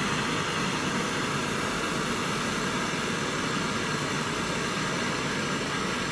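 Gas welding torch flame burning with a steady, even hiss.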